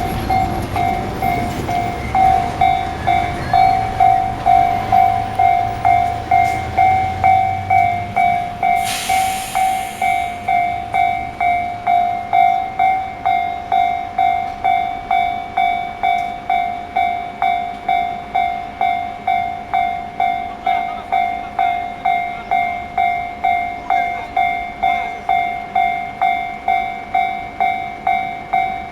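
Japanese railway level-crossing warning bell ringing, an electronic clang repeated evenly a little under twice a second: the crossing is closed for an approaching train. A low rumble runs under it for the first several seconds, and a short hiss comes about nine seconds in.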